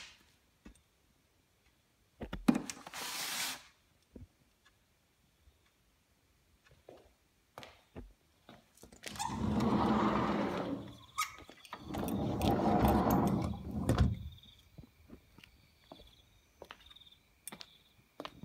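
A door of a small station waiting room dragged open and then shut, two long squealing scrapes of about two seconds each in the middle, after a shorter, sharper noise about two seconds in.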